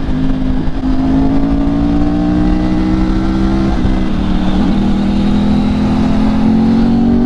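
Motorcycle engine running at highway cruising speed, with wind rushing over the rider's microphone. The engine note dips briefly a little under four seconds in, then climbs slowly.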